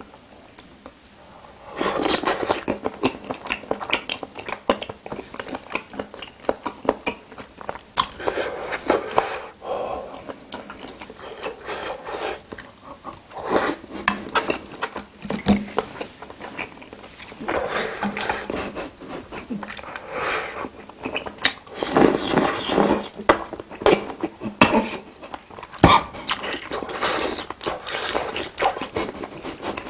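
Close-miked eating sounds of spicy braised seafood being chewed: irregular wet smacks and sharp clicks, starting about two seconds in and going on in uneven bursts.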